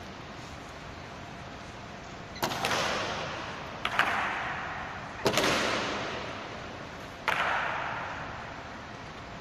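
Four sharp cracks from the honor guards' drill, the second a quick double, each ringing out with a long echo in the marble memorial hall.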